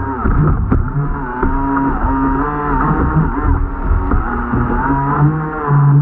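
Radio-controlled jet boat's motor running, its pitch rising and falling as the throttle changes, over the rush of the water jet.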